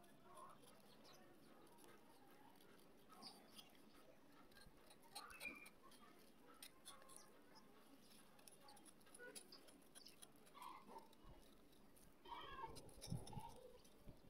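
Faint scraping and crumbling of a steel knife blade shaving dried multani mitti clay, heard as scattered small ticks and scratches, growing louder for a moment near the end.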